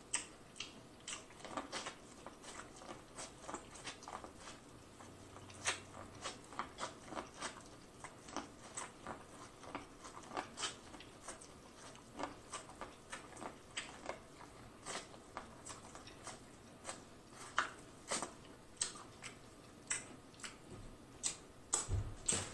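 Close-miked biting and chewing of corn on the cob: a steady run of short, crisp crunches and clicks, a few a second, as kernels are bitten off the cob and chewed.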